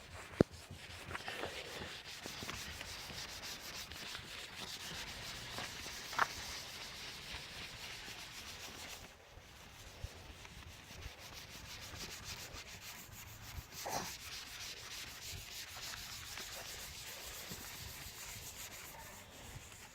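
Wet cloth scrubbing toothpaste into a foggy plastic car headlight lens, a steady rubbing in repeated up-and-down strokes, with a short lull about nine seconds in.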